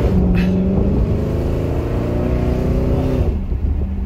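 2011 Jaguar XFR's supercharged 5.0-litre V8 with a straight-piped aftermarket exhaust pulling hard under acceleration, heard from inside the cabin. The engine note climbs steadily, then falls away about three seconds in as the power comes off or it shifts up.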